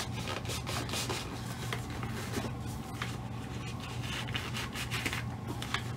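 Cloth rubbing and rustling against a resin ball-jointed doll as a snug garment is tugged into place on its hips, with many small ticks from handling.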